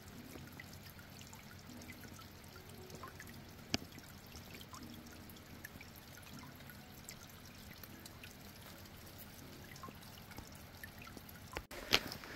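Small cascade of stream water trickling and splashing steadily, with a scatter of small drips and splashes. A sharp click comes about four seconds in and a louder one near the end.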